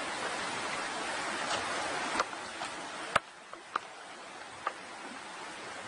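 Steady outdoor hiss with a few short, sharp clicks; a loud click about three seconds in, after which the hiss drops off.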